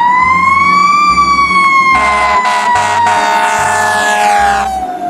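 Fire engine siren sweeping up in pitch over about a second, then slowly falling, with the truck's horn blasting several times from about two seconds in.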